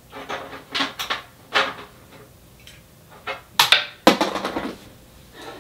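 Small plastic camera accessories and their packaging being handled on a wooden desk: a series of short rustles and light knocks, the loudest pair about four seconds in.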